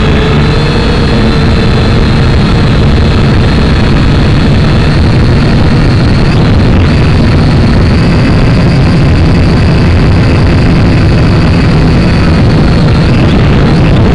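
Syma X5C quadcopter's small electric motors and propellers whining steadily and loudly, picked up close by the drone's own onboard camera as it lifts off and climbs.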